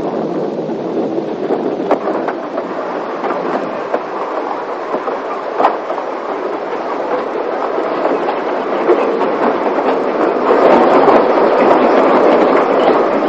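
Two Beyer Peacock-built narrow-gauge 0-6-0 tank steam locomotives working together, a continuous clatter of running gear and exhaust. It grows louder about ten seconds in as they come closer.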